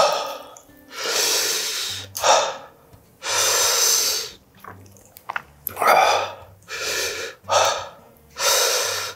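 A man breathing hard through his mouth about eight times while eating, with quick sharp gasps and long breathy exhales.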